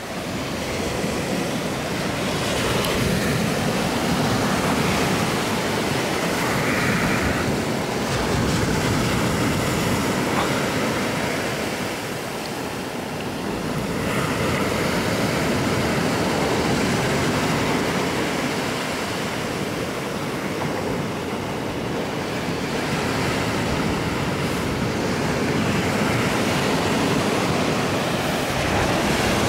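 Ocean surf breaking on a black-sand beach: a continuous rush of waves that swells and eases, dipping about twelve seconds in and again around twenty.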